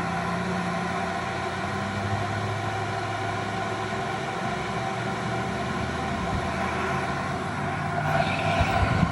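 Cruise N Comfort van air conditioner running, a steady hum with fan noise heard from about 15 feet away. A brief swell of hiss comes near the end.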